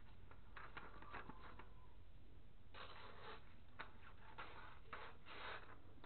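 Pocket knife blade slicing a sheet of paper to test the freshly sharpened edge: a few soft scratchy cuts, then louder paper rustling as the sheet is handled.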